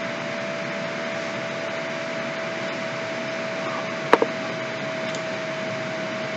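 Steady hiss with a constant faint tone, and about four seconds in a single computer mouse click, pressed and released in quick succession.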